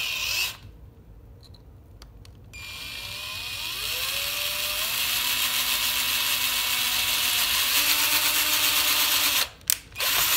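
Power drill boring a hole into a wooden lure body with a long thin bit. A short burst comes near the start. About two and a half seconds in, the drill spins up with a rising whine, runs steadily for several seconds and stops. A click and another short burst come near the end.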